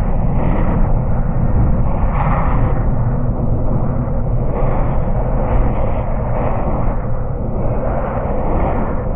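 Steady, deep rumbling noise played as a sleep and relaxation track, strongest in the bass with no high hiss, swelling and easing gently every second or so.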